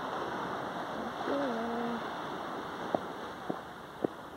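Steady rushing of surf and wind on a beach. About a second in there is a short low call that steps down in pitch, and near the end three sharp clicks come about half a second apart.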